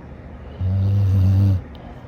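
A dog snoring: one low snore about a second long, starting about half a second in.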